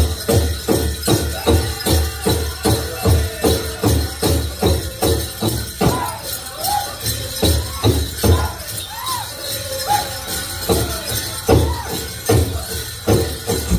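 Powwow drum group: a big drum struck in an even beat, about three strokes a second, under high singing voices. In the second half the strokes come farther apart while the voices glide up and down, and it all stops near the end. Dancers' bells jingle throughout.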